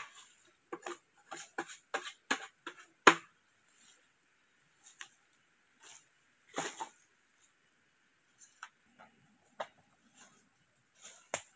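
Dry bamboo litter crackling and snapping: footsteps crunching through fallen bamboo leaves and bamboo sticks cracking and knocking as they are handled. The sharp irregular cracks come thick in the first three seconds, the loudest about three seconds in, then turn sparse.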